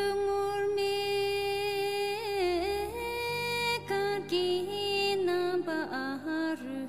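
A solo voice sings a slow Tibetan song over soft, sustained backing music. It holds long notes with quick ornamental turns in pitch, and the phrase steps down in pitch near the end.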